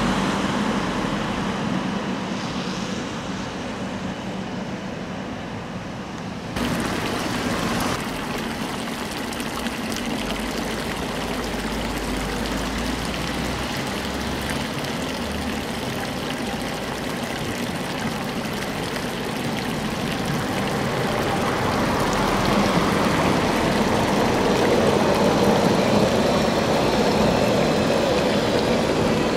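Street traffic along a tram line: a tram and road traffic fade off in the first few seconds. After a cut, an older red articulated tram approaches on its rails and grows louder as it runs past close by over the last few seconds.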